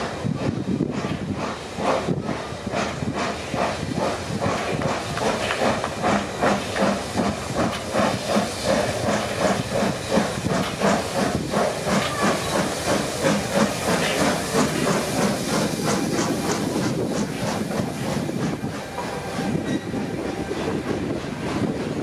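FS Class 625 steam locomotive working hard as it pulls a train past, its exhaust chuffing in a steady rhythm over a constant steam hiss.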